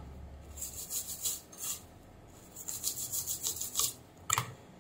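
A bristle brush scrubbing a circuit board in quick scratchy strokes, in two runs with a short pause between them, followed by a sharp click near the end.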